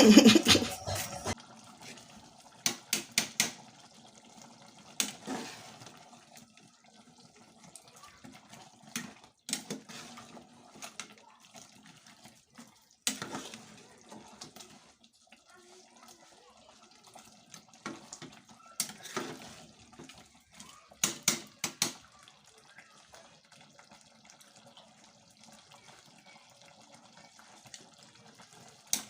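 Intermittent kitchen sounds: short runs of water from a tap, with scattered clinks and knocks of pots and utensils.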